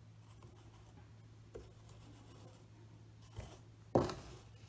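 Miniature figures on round bases being slid and set down on a tabletop game mat: faint rubbing, a light click about one and a half seconds in, a knock a little before the end, then the loudest sound, a short thud, as a figure is put down.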